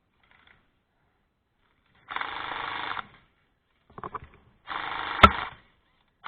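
Airsoft guns firing on full auto: two bursts of rapid shots, each about a second long, with a few single shots between them and a sharp crack in the second burst.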